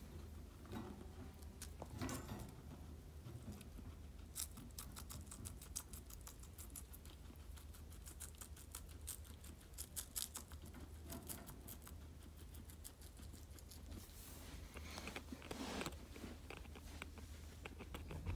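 Faint rapid ticking and rustling from a guinea pig in its cage, with a few soft louder rustles.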